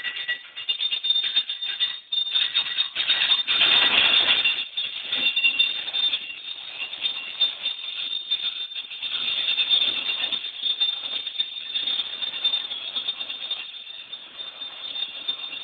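Amusement park ride running, its metal parts squealing high and rattling unevenly; loudest in the first few seconds.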